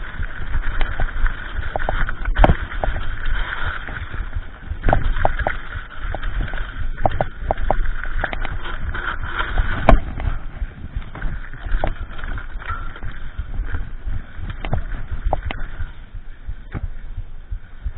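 Mountain bike riding over rough, rocky dirt trail: a continuous rattle and crunch of tyres and frame, broken by sharp knocks as it hits bumps, the loudest about ten seconds in.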